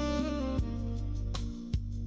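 Background music: a slow, tender jazz-style instrumental with held notes over a steady bass line.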